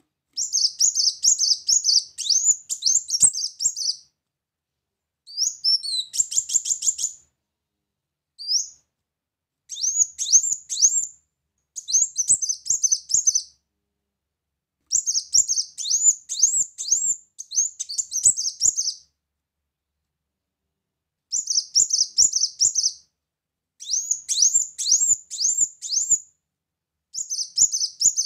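Kolibri muncang sunbird singing: bursts of rapid, high, twittering song, each a couple of seconds long, made of quick notes sweeping up and down, repeated about ten times with short pauses between. This is the song used as a 'pancingan', a lure to bring other kolibri muncang into song.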